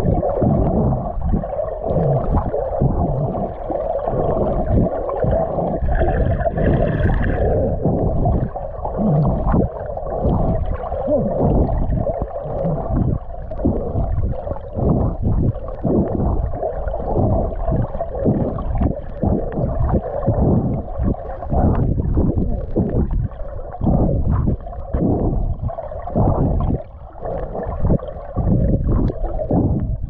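Muffled underwater sea noise, water sloshing and gurgling around a submerged camera, surging and falling about once a second as the swimmer moves through the water.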